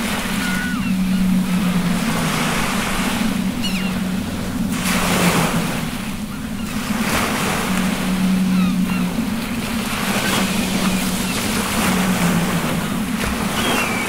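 Rough open-ocean waves and wind, the wash swelling and easing every three to four seconds, over a steady low hum. Faint short high squeaky calls come through now and then.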